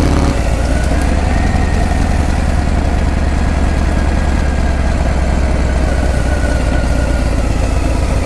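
Harley-Davidson Breakout's V-twin engine running steadily through its exhaust, with a slight change in its note under a second in.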